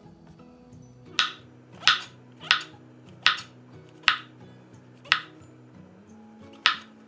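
Chef's knife slicing through brown mushrooms and knocking on a wooden cutting board: seven sharp knocks, unevenly spaced. Soft background music plays underneath.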